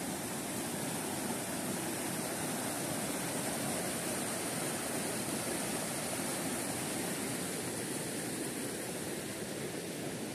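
Mountain stream rushing over rocks: a steady, even wash of running water.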